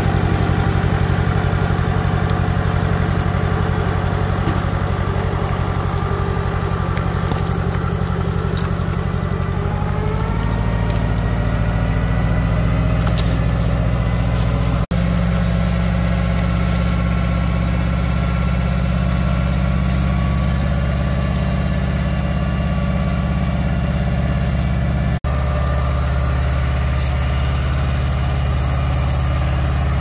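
Small Allis-Chalmers tractor engine running steadily under load while dragging logs. Its pitch rises about a third of the way through as the throttle is opened, then holds. The sound cuts out for an instant twice.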